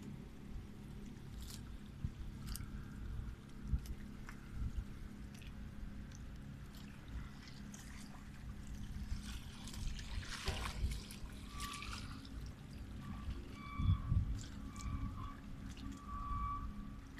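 Water lapping at a rocky shore over a continuous low rumble, with a louder wash of water about ten seconds in. From about twelve seconds in, a short electronic beep repeats roughly every three-quarters of a second.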